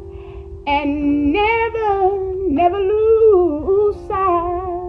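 A woman singing long, wavering wordless notes, close to humming, with a song playing faintly behind her.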